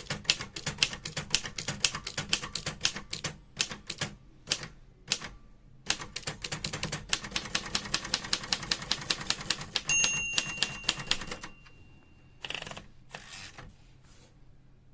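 Royal Safari portable manual typewriter being typed on: fast runs of key strikes with a short pause. About two-thirds of the way in, a ringing tone fades over a couple of seconds, typical of the margin bell. It is followed by a longer rattling stroke, typical of the carriage return, and a few last keystrokes.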